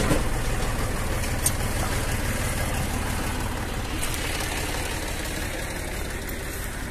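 Zetor 5011 tractor's three-cylinder diesel engine idling steadily, with its diesel clatter, growing slightly fainter.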